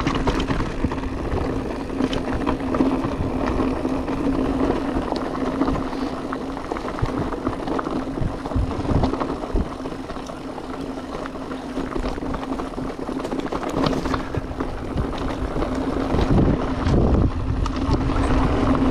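Electric mountain bike on the move on a trail: the drive motor's steady hum under the noise of Wolfpack Enduro tyres rolling over the ground, with frequent clicks and knocks from the bike over rough terrain.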